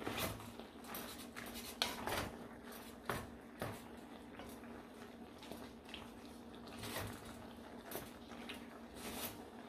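Wooden spoon stirring macaroni shells in a metal pot, with scattered light knocks and scrapes against the pot's side. A faint steady low hum runs underneath.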